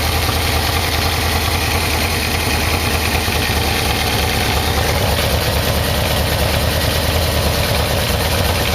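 Yamaha VMax V4 engine idling steadily while its carburettors are being synchronised, with one side badly out of balance and sucking air.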